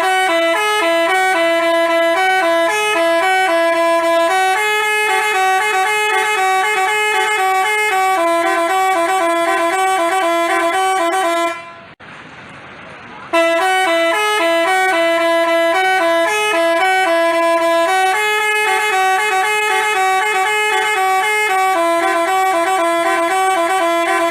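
Basuri-type telolet bus horn playing a stepped multi-note tune, loud and clear, played through twice with a break of about a second and a half between.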